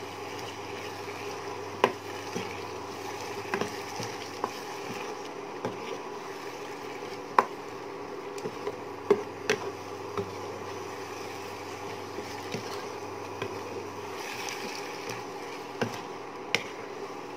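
Wooden spatula stirring potatoes and beans in a nonstick wok, with irregular sharp knocks of the spatula against the pan, thickest in the first ten seconds and twice more near the end, over a steady hum.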